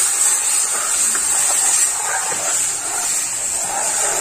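Hot spiced oil in a kadhai hissing and sizzling steadily as buttermilk-and-gram-flour batter is poured in and stirred with a metal ladle.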